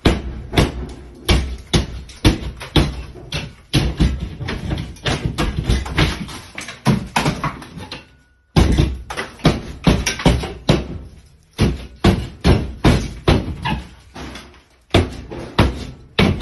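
Hartford plaster hook driven again and again up into a sheetrock ceiling: a fast run of sharp thuds and cracks, about two to three a second, as the gypsum board breaks away. A short break about eight seconds in.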